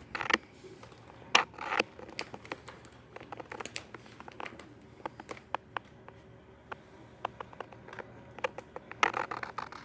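Irregular light clicks and scratching, with a few louder rustles about a second and a half in and again near the end.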